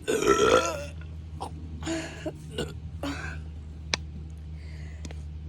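A loud burp lasting about a second, brought up by gulping carbonated lemon-lime soda. It is followed by a few shorter, weaker throat and breath sounds.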